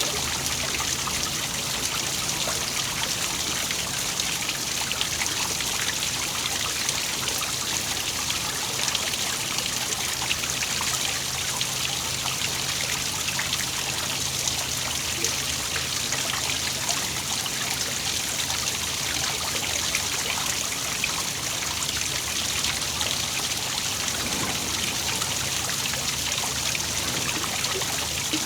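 Waterfall splashing steadily, an even rush of falling water with fine trickling and spattering.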